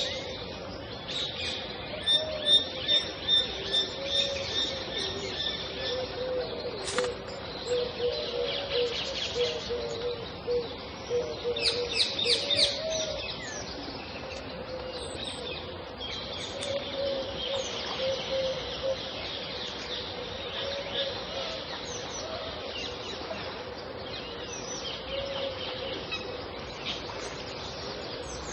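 Several kinds of birds calling together at a pond: high chirps and trills over lower repeated calls.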